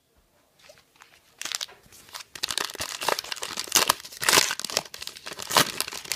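Crinkling and tearing of a trading card pack's plastic wrapper being opened by hand: irregular crackles that start about a second and a half in and grow louder toward the middle.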